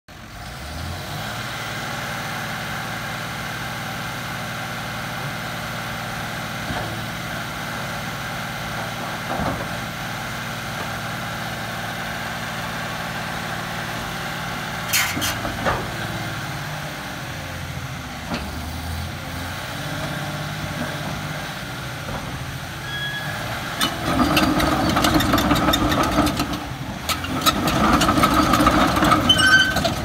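John Deere 850K crawler dozer's diesel engine idling steadily, then from about 24 seconds in running louder and rougher as the dozer starts to move, with clicking and clatter from the steel tracks.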